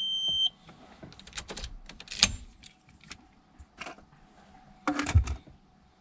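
A steady high electronic beep that stops about half a second in, then scattered light clicks and clatters of small parts being handled, with a louder cluster of knocks about five seconds in.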